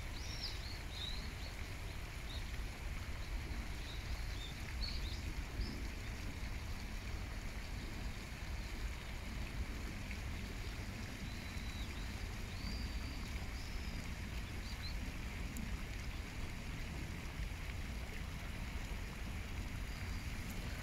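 Outdoor ambience: a steady low rumble, with a few faint, short high bird chirps scattered through.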